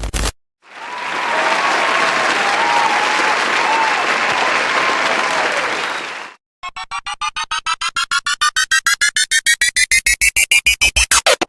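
Stock sound effects: about five seconds of crowd applause and cheering, then a fast electronic pulsing, about eight pulses a second, that rises steadily in pitch.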